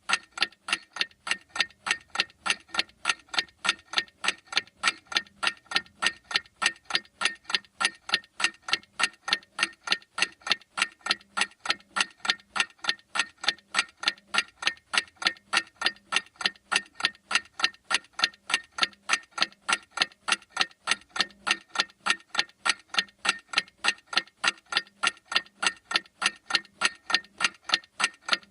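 Clock ticking steadily, sharp even ticks several times a second with no break.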